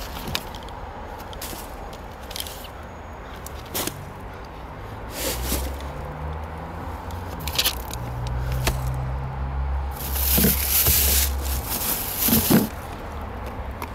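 Papers and plastic shopping bags being handled by hand: scattered rustles and crinkles, with a longer crinkling of a plastic bag about ten seconds in. A low hum runs underneath through the middle.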